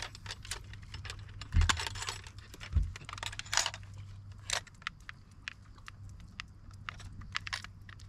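Clicks, rattles and jingles of handling a handheld fish scale and clipping a fish onto it, with two dull knocks in the first three seconds.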